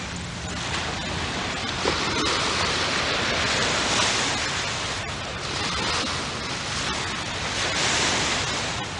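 Small waves washing up on the beach: a steady hiss that swells twice, about four seconds in and again near the end.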